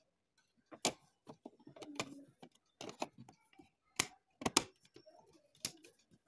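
Sharp plastic clicks and knocks at irregular intervals, about half a dozen, as a cassette is handled and pushed into the cassette door of a Sony FH-411R double cassette deck.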